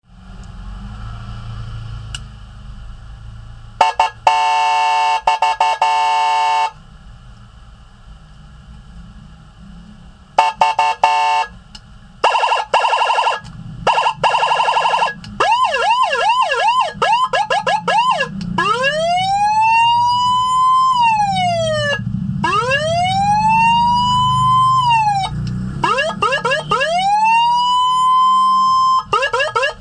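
Electronic six-tone siren module switching between its tones: a fast-pulsing steady tone about four seconds in, short bursts and a fluttering tone, then a rapid up-and-down yelp, then slow wails that rise and fall. A low hum runs underneath.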